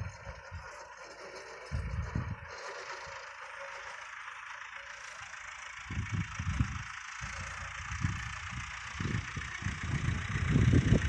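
John Deere 2120 tractor's diesel engine and its PZ 165 rotary disc mower running steadily at a distance as a continuous drone. Gusts of wind rumble on the microphone several times.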